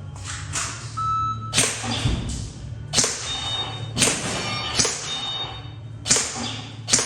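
Airsoft gun fired in single shots, about seven sharp cracks roughly a second apart, over a steady low hum.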